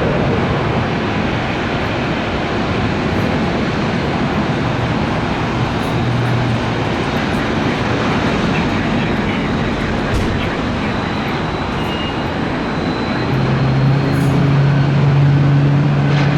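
Airbus A320neo's jet engines running steadily at low power on the ground. About three-quarters of the way through, a low steady hum joins in and the sound grows a little louder.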